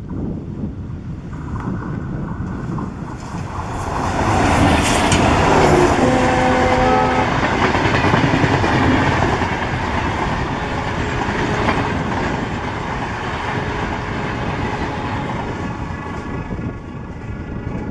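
Indian Railways diesel-hauled train passing. The sound grows louder about four seconds in and then slowly fades, with a single horn blast of about a second near the middle.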